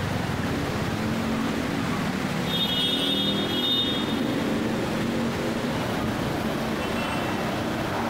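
Cars driving slowly through floodwater, their engines running under the steady wash of water and rain. A brief high tone sounds for about a second, a little over two seconds in, and again faintly near the end.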